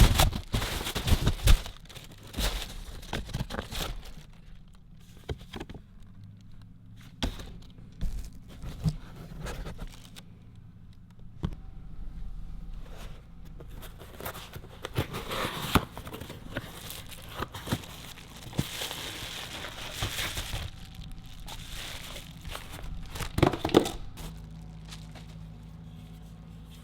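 Irregular clicks, knocks and crinkling of parts and packaging being handled during hands-on work, with a few louder clusters of knocks.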